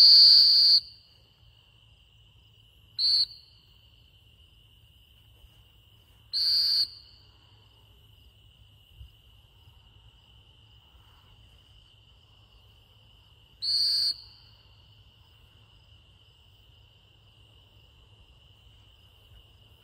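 Four blasts on a dog-training whistle, one long at the start and shorter ones about three, six and a half and fourteen seconds in: handling signals to a retriever running a blind, stopping it mid-route and casting it on. A steady cricket trill runs underneath.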